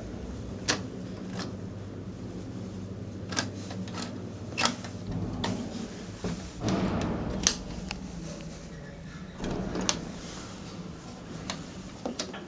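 Steady low electrical hum inside a stalled elevator cabin, broken by scattered sharp clicks and knocks and a couple of brief rustles.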